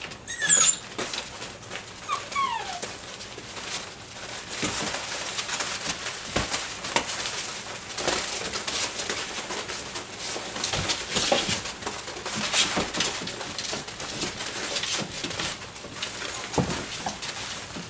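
Six-week-old Doberman puppies scrambling and rustling through wood-shaving bedding. A loud, high, falling yelp comes about half a second in, and a shorter falling whimper comes a couple of seconds later.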